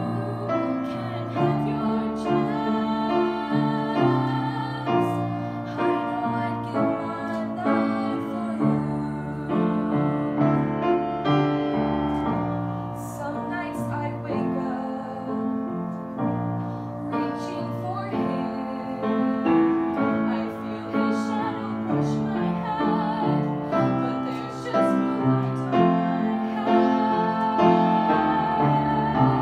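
A teenage girl singing a musical-theatre ballad solo with upright piano accompaniment, holding some notes with vibrato.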